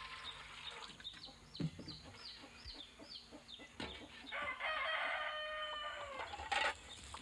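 A rooster crows once about halfway through, a long held call of about two seconds. Before it comes a run of short falling chirps, about two a second.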